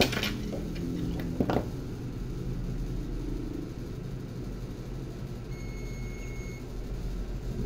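Steady low electrical hum of bench equipment, with two light clicks near the start and a faint, short high-pitched beep about six seconds in.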